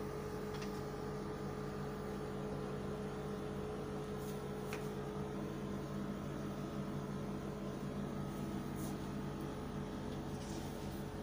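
Steady low mechanical hum with a fixed tone running through it, with a couple of faint clicks about half a second and about four and a half seconds in.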